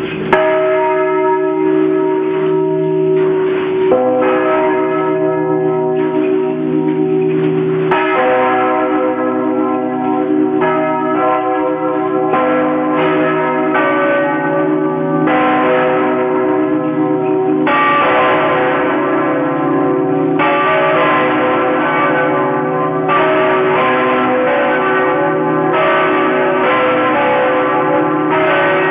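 The church bells of Saigon's Notre-Dame Cathedral ringing a peal. Several bells are struck in turn, with fresh strokes every two to three seconds, and their tones ring on and overlap.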